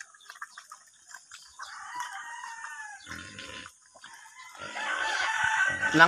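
A rooster crowing twice: a long call about a second and a half in that falls in pitch at its end, and another near the end.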